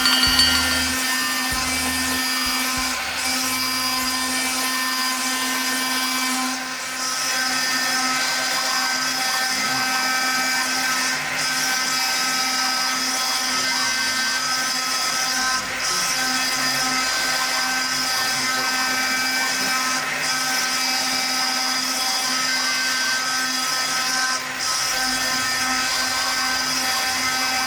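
CNC stone milling machine's high-speed spindle running with a steady high whine as its cutter mills a headstone image into stone. The level drops briefly every four to five seconds.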